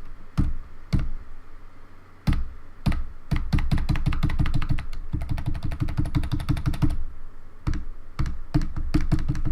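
Keys of a Logitech K360 keyboard being pressed: a few separate key clicks at first, then rapid, repeated tapping for several seconds, then more presses. Previously stuck keys are being tried out after cleaning with isopropyl alcohol.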